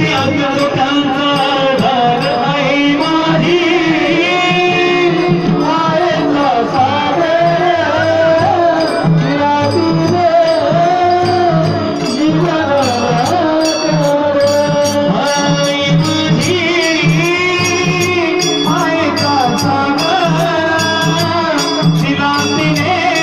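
Marathi devotional song with a singing voice carrying a wavering melody over a steady beat of drum and jingling percussion.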